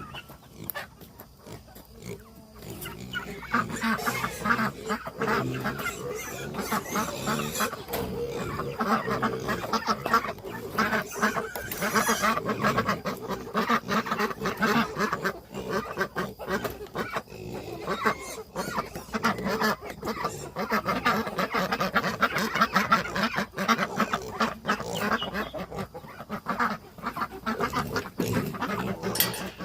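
Many farm birds calling at once, a constant din of overlapping calls that swells up about three seconds in.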